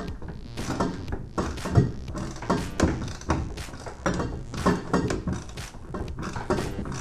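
Irregular clicks and knocks, roughly two a second, of a 1/4-inch drive ratchet with a 10mm deep socket tightening a nut on a stud inside a van's rear door, nipped up as the shield's gasket compresses.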